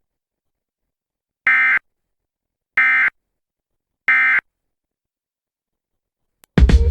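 Emergency Alert System end-of-message tones: three short, identical bursts of buzzy digital data warble, about a second and a half apart, marking the end of the alert. A loud new sound cuts in at the very end.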